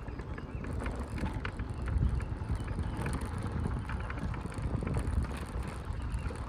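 Outdoor ambience dominated by wind buffeting the microphone in an uneven low rumble, with scattered faint ticks over it.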